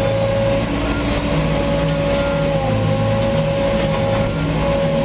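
A machine's engine running steadily under load, with a steady high whine over its low hum.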